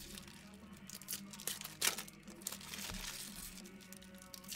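Hands handling trading cards and crinkly card-pack wrappers: a string of short rustles and crinkles, with a soft thump about three seconds in.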